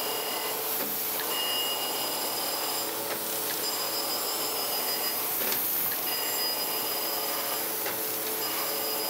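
Surface grinder running, the wheel grinding the steel top of a magnetic chuck flat as the table carries it back and forth under the wheel. A steady whine with several high tones that drop out briefly every two to three seconds.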